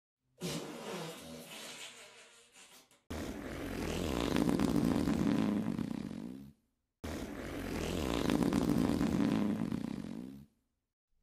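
Fart sound effects, three in a row: a first one that fades out over a couple of seconds, then two long, rumbly ones of nearly the same shape that swell and then die away.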